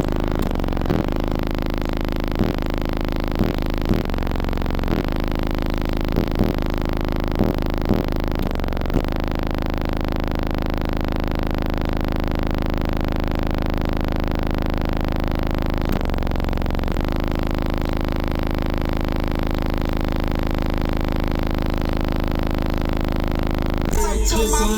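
Car audio system with twenty-four 10-inch subwoofers playing a loud, sustained bass tone. It cuts out briefly many times in the first third and once more for about a second past the middle.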